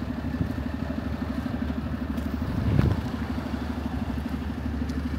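An engine idling steadily with a fast, even putter, swelling briefly louder about three seconds in.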